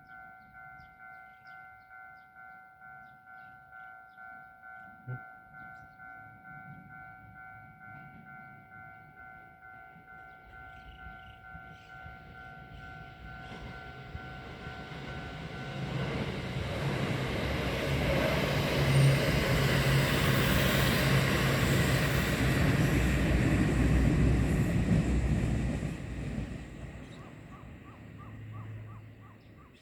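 A Japanese level-crossing warning bell rings in a steady repeating ding, about one and a half times a second. A Kintetsu 1430-series electric train approaches, then passes the crossing with a loud rumble of wheels on rails through the second half, and fades away near the end. The bell's tones are lost about halfway through.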